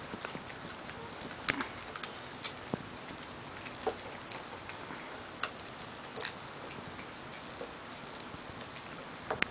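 Small dogs, a Maltese among them, gnawing raw meaty bones: irregular sharp cracks and clicks of teeth on bone, scattered every second or so, over a steady hiss.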